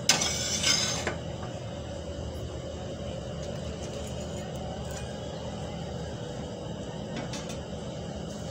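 A brief clatter of a metal spatula against a stainless steel plate in the first second as the bread omelette is served, then a steady low background hum.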